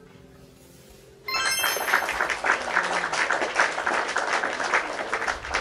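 A bright chime, then a burst of applause with dense, rapid clapping, starting suddenly about a second in and lasting about four seconds.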